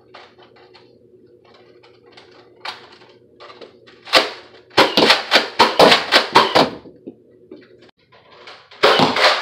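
Hard plastic clicking and clacking as a Nerf blaster built from two Mega Magnus blasters is handled and loaded: scattered light clicks at first, then a quick run of loud clacks from about four seconds in, and more loud clacks near the end.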